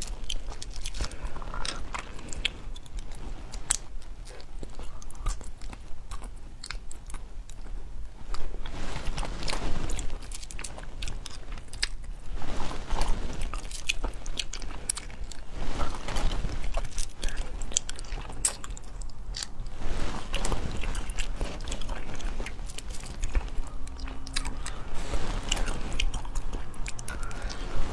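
Close-miked eating of spicy stir-fried small snails: biting and chewing, with frequent short, sharp clicks as the snails are picked from the plate and the meat is pulled from the shells.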